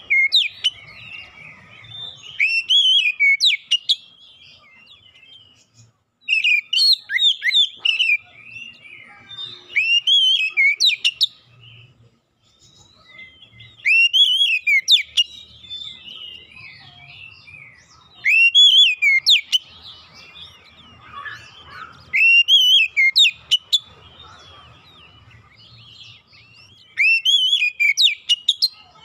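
Male oriental magpie-robin singing: loud, varied whistled phrases with sharp upward sweeps, delivered in bursts of a second or two every few seconds with short pauses between.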